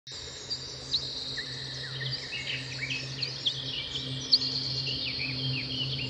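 A chorus of birds chirping: many short, quick whistled chirps overlapping one another, over a steady low hum.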